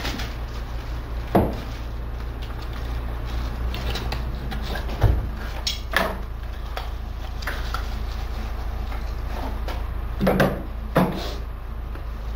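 Several knocks and clunks from handling a lift recliner chair and its parts, two of them close together near the end, over a steady low hum.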